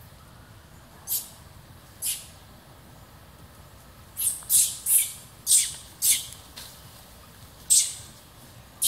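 Baby macaque's short, shrill distress squeals: one, then another a second later, a quick run of five, then two more near the end. It is crying out while an adult macaque grabs and holds it.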